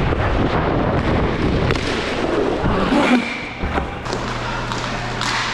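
Roller hockey play: a steady rush of noise with a few sharp knocks of sticks and puck, the loudest about three seconds in.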